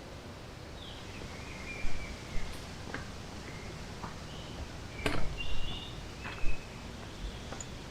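Short high chirps from birds over a steady outdoor hiss, with several dull thumps and a few sharp clicks scattered through.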